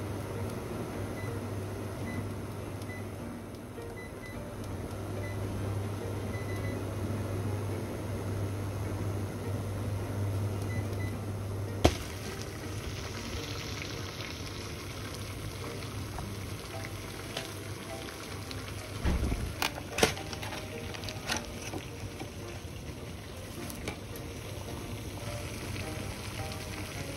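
Water in a stainless steel saucepan on an electric cooktop at full heat, bubbling and hissing as it comes to a rolling boil. A steady low hum runs under it for the first twelve seconds or so, and a few knocks come about two-thirds of the way through.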